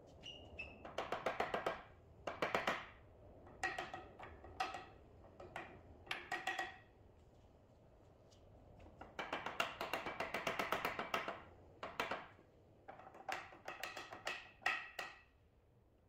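A mallet tapping the joints of an oak table frame in about seven quick runs of light knocks, each with a slight ring; the longest run comes about nine seconds in.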